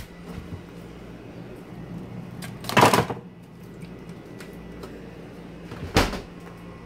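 Top-freezer refrigerator door pulled open about three seconds in, then swung shut with a sharp knock about six seconds in.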